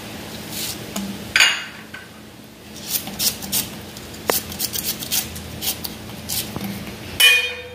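Knife cutting green chillies held in the hand, the cut pieces dropping into a metal pan of mango chunks in water: a string of short irregular clicks and taps. Two louder clatters come about a second and a half in and near the end.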